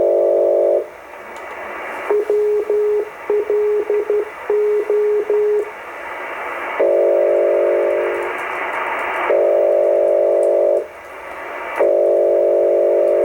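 Shortwave receiver tuned to WLO, a US maritime coastal radio station, putting out its transmissions over band hiss. Blocks of several steady tones a couple of seconds long start and stop, and in the middle a single tone is keyed on and off in short and long marks, like Morse code.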